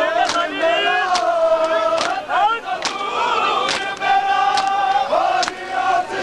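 Mourners' chest-beating (matam): sharp, unison slaps about once every 0.85 s, seven in all. Over them men chant a mourning lament in long held lines.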